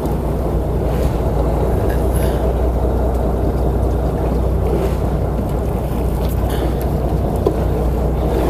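Fishing boat's engine running with a steady low hum, under the rush of wind and water on the open sea.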